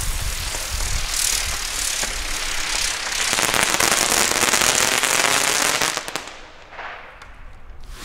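Xplode Crackling Bird fire-bird fireworks burning in the air with a dense hissing crackle. It fades away sharply about six seconds in, leaving a few last faint crackles.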